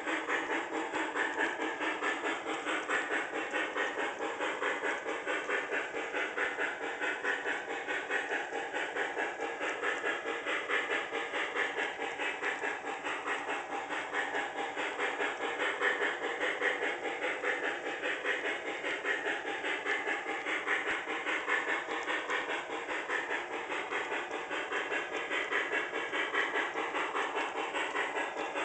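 Onboard sound system of an MTH HO model of the Pere Marquette 1225 2-8-4 Berkshire steam locomotive playing steady, rhythmic steam chuffing as the train runs, thin and without deep bass.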